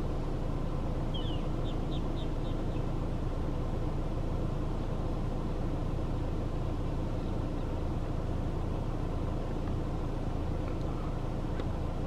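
Steady low rumble of a car engine running. About a second in, a small bird gives a quick run of about six short, high chirps.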